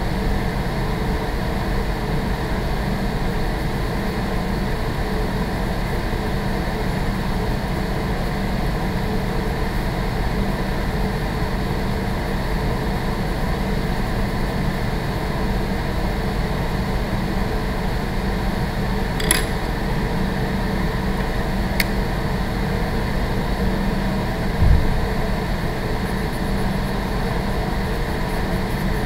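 Steady drone of running building ventilation. A couple of sharp clicks come about two-thirds of the way in, and a short low thump follows a few seconds later.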